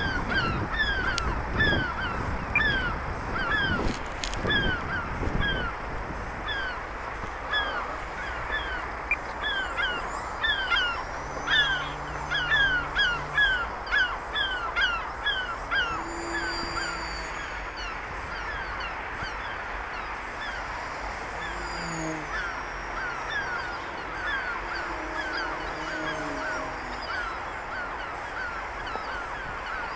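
Seagulls calling, many short downward-sliding cries overlapping several a second, busiest for the first sixteen seconds and thinner after that. Wind buffets the microphone in the first few seconds.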